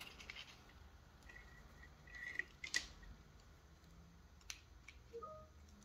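Faint metallic clicks and scraping as needle-nose pliers tips work the metal retaining ring inside a flashlight tail cap, turning it down to seat it. The sharpest click comes a little under three seconds in.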